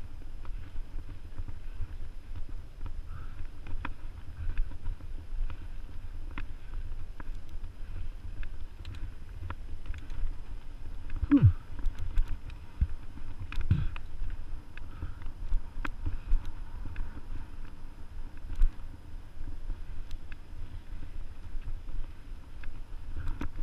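Mountain bike riding a dirt singletrack, heard from a camera on the bike or rider: a steady low rumble of wind on the microphone and tyres on dirt, with frequent clicks and knocks from the bike rattling over the trail. Two brief downward-sliding tones come near the middle.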